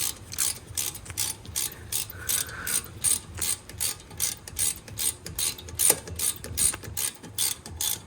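Hand ratchet clicking steadily, about four clicks a second, as it winds a brake caliper guide pin bolt into a BMW X1 E84 front caliper.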